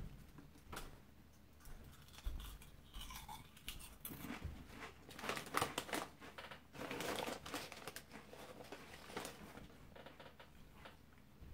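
Plastic snack-chip bag (Ritz Crisp & Thins) rustling and crinkling in irregular spurts as a hand reaches into it and handles its top, busiest around the middle.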